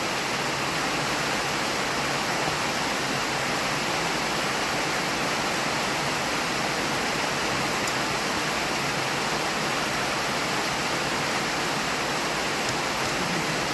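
Rain falling steadily, a loud, even hiss with no breaks.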